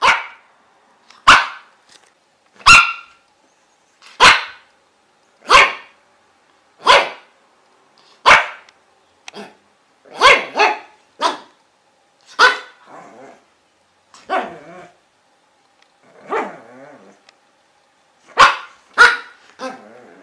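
Dog barking, loud single barks about every second and a half, then quicker runs of barks, with a couple of longer, rougher barks in the middle.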